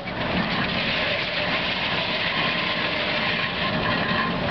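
Waterous sawmill at work: a large circular head saw cuts a log as the carriage carries it along its track, giving a dense, steady sawing noise with a rolling rattle.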